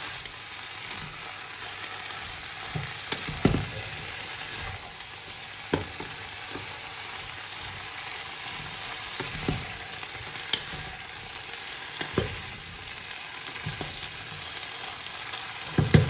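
Cabbage, snow peas, carrots and chicken sizzling in a frying pan while being stirred and tossed with a wooden spatula. A steady sizzle, broken every few seconds by short knocks of the spatula against the pan, the loudest about three seconds in and at the very end.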